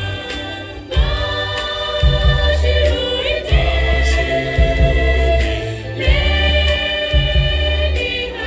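Mixed church choir singing a gospel song in parts, holding chords that change every second or two, with low thumping underneath.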